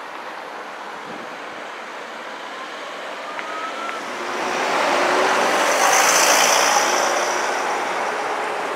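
Street traffic with a motor vehicle passing close by: its tyre and engine noise swells, peaks about six seconds in, then fades.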